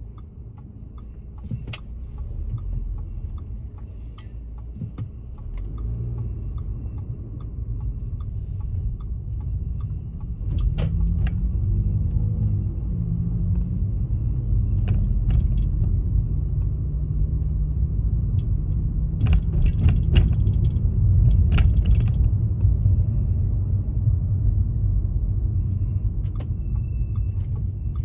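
Road and engine rumble heard from inside a moving car, growing louder about ten seconds in, with scattered sharp clicks and rattles.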